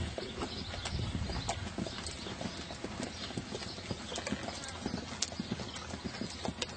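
Hoofbeats of a ridden horse moving around a dirt arena, an irregular run of several dull footfalls a second.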